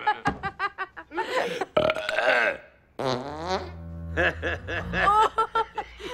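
Laughter in quick bursts, then about three seconds in a long, low fart lasting a couple of seconds, with laughter starting again over its end.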